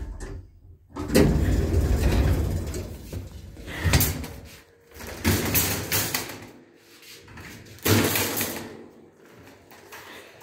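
A metal wire shopping trolley rattling and clanking as it is pushed and handled, in several loud spells with a sharp knock in between.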